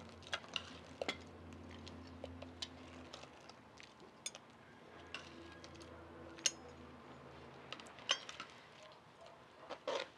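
Metal ladle clinking and knocking against a clay pot and a clay serving bowl as shrimp broth is ladled out: scattered light clinks, the sharpest a little past halfway.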